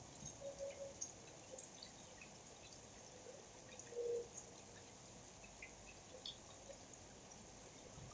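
Faint rainwater dripping: scattered small drops over a soft hiss, with a louder plink about four seconds in.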